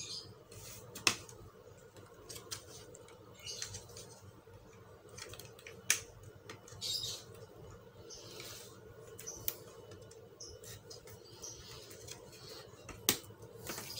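Light scraping and handling of plastic laptop parts being pressed and fitted together, with a few sharp clicks spread through it, the clearest about a second in, about six seconds in and near the end.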